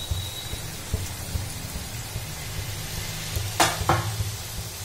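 Shakkar pare dough pieces deep-frying in hot oil in a kadai: a steady sizzling hiss. Near the end two sharp knocks, a third of a second apart, are the loudest sounds.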